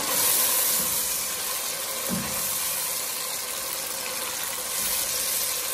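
Chicken frying in sauce in a pan, a steady sizzle while it is stirred, with one dull knock about two seconds in.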